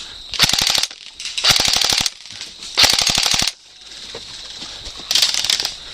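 Airsoft rifle firing on full auto in four short bursts, each a rapid string of sharp clicks lasting under a second.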